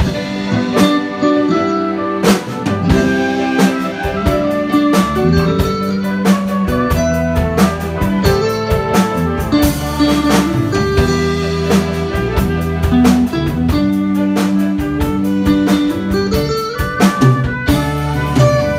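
Amateur rock band playing an instrumental passage of a medley of Taiwanese glove-puppet theatre (budaixi) tunes: electric guitar, electric bass and keyboards over a drum kit with a steady beat.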